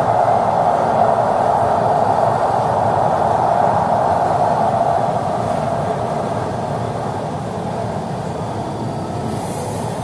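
LA Metro subway train running along the track: a steady ride noise of wheels and motors, easing a little about halfway through.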